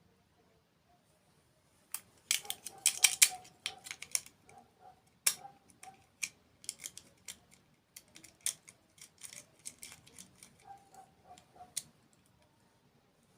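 Close-miked eating sounds: a dense run of crisp crunches about two seconds in, then scattered sharp crunching clicks while chewing, stopping near the end.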